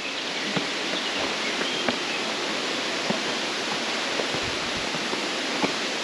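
Steady rush of water from a waterfall, an even hiss that holds at one level throughout.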